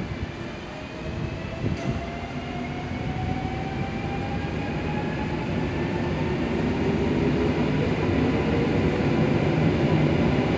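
A non-stopping train approaching the station, its rumble growing steadily louder, with a faint whine that slowly rises in pitch.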